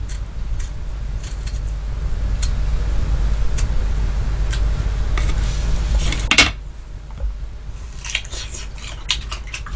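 Paring knife peeling a sweet persimmon, with small scraping clicks, then a louder clack about six and a half seconds in as the knife goes down on the plate. Near the end, crisp chewing of the persimmon flesh, soft outside and crunchy inside.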